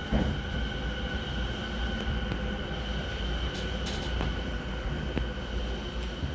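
Interior running sound of a refurbished Tokyo Waterfront Area Rapid Transit 70-000 series electric train cruising between stations. It is a steady low rumble of wheels on rail with a steady whine at even pitch and a few sharp clicks.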